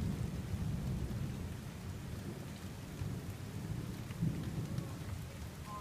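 Thunder rolling: a low, continuous rumble that is loudest at the start and swells again about four seconds in.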